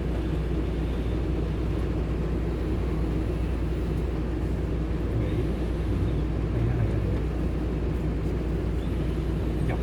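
Steady low rumble of a car's engine and tyres on the road, heard inside the cabin.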